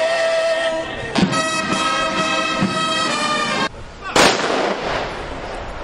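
A ceremonial rifle salute: an honour guard fires a single loud volley about four seconds in, a sharp crack with a ringing, echoing tail. Before it, held musical tones sound and then cut off suddenly.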